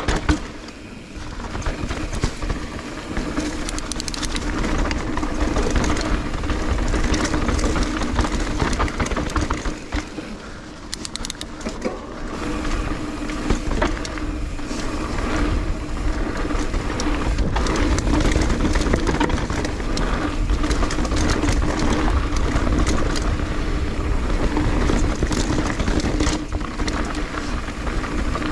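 Mountain bike riding fast down a rough dirt singletrack, picked up by the GoPro on the bike or rider. Tyres roll over dirt, roots and leaves while the bike rattles and clicks over the bumps, with brief quieter dips about a second in and again around ten to twelve seconds.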